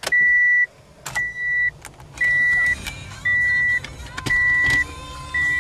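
A 1998 Ford Escort's dashboard warning chime sounding six times, about once a second, as the key is turned on in the ignition. A faint steady hum comes in about four seconds in.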